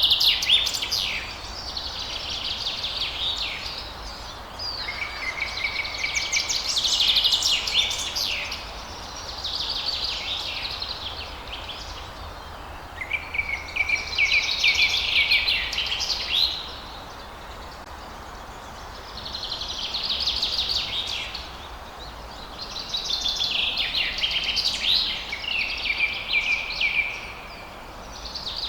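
Songbirds singing: trilled song phrases of two to four seconds each, repeating every few seconds, some ending on a lower steady note, over a steady background hiss.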